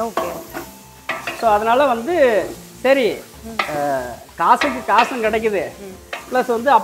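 A long steel ladle stirring and scraping through onion-and-tomato masala frying in oil in a large pot, in repeated strokes that each give a short squealing scrape over a steady sizzle.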